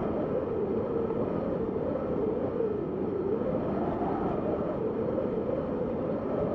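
Wind blowing with a steady rush and a hollow whistling tone that slowly rises and falls in pitch.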